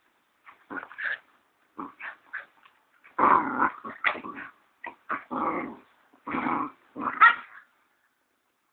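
Siberian Husky puppies growling in short bursts while play-fighting, the growls getting louder and coming close together from about three seconds in, then stopping near the end.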